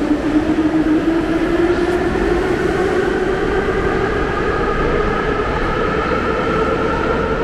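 Metro train's electric traction motors whining as it pulls out of the station, the whine rising slowly and steadily in pitch over a constant rumble.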